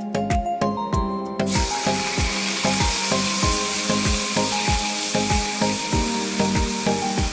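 Beef pieces sizzling in hot oil in a wok as they are stirred with a spatula. The sizzle cuts in suddenly about a second and a half in, over background music with a steady beat.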